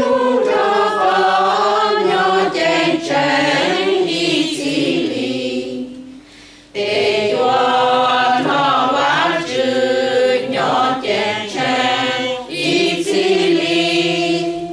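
Mixed choir of men's and women's voices singing a hymn, pausing briefly about six seconds in, then singing another phrase that ends near the end.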